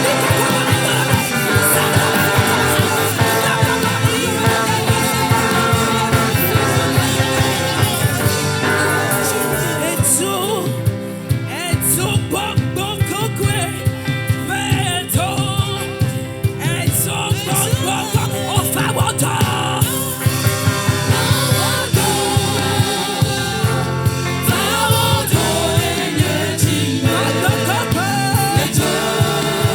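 Gospel song with a full band and a steady beat; a singer's voice comes forward about ten seconds in, when the backing thins, and the full band returns about twenty seconds in.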